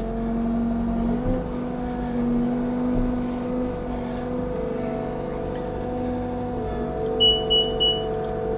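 Bobcat T66 compact track loader's diesel engine running steadily while the lift and tilt hydraulics raise and curl the bucket, showing that the repaired wiring harness has restored lift and tilt. The engine's pitch shifts a little a few times as the hydraulics take load. Near the end come three short high-pitched beeps.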